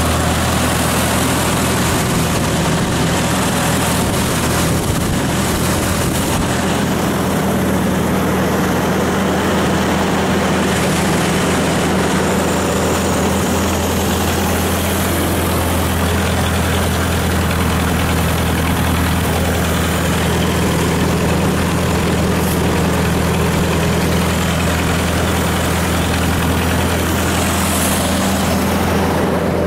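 1956 Ford tractor's engine idling steadily just after a cold start, left running to warm up and dry off.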